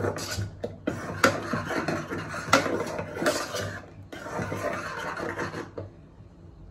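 Metal spoon stirring a thick curry mixture in a pot, scraping against the pot with wet squelches and a few sharp clinks of spoon on metal. The stirring stops near the end.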